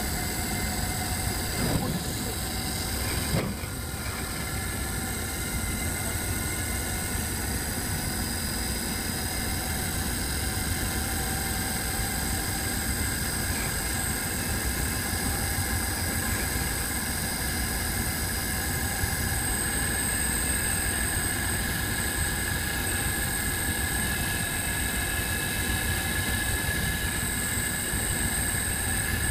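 Steady drone of a skipjack tuna fishing boat under way in heavy seas: the vessel's engine running beneath the rush of water and spray off the bow, with a few faint steady whines higher up. There are two brief knocks in the first few seconds.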